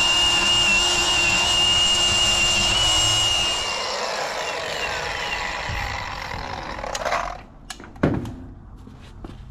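Milwaukee angle grinder grinding a weld bead down on steel, a steady high whine, then released about three and a half seconds in and spinning down over a few seconds. A few clicks and a sharp knock follow near the end.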